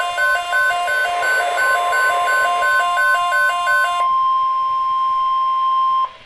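Steady NOAA Weather Radio warning alarm tone, one long single-pitch tone that cuts off suddenly about six seconds in, signalling that an alert message follows. For the first four seconds a quick, repeating beeping melody plays over it.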